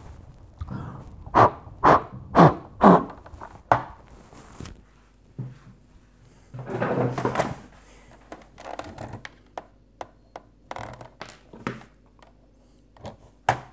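Hollow plastic toy body being handled and knocked on a wooden table. Four sharp knocks come about half a second apart early on, followed by lighter clicks and handling.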